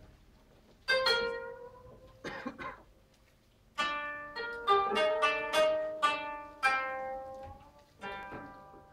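A plucked string instrument played live, with single notes and chords that ring out and fade. A quick run of plucked notes comes about four seconds in, and a last pluck near the end.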